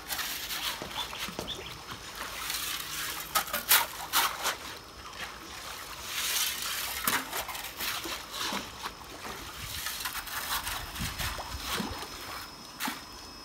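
Shovel churning gravel, sand and charcoal under water in a flooded filter compartment: irregular splashing and sloshing with sharp gritty scrapes, loudest around three to four seconds in. The filter bed is being stirred to break up the clogged deposits that are choking the water flow.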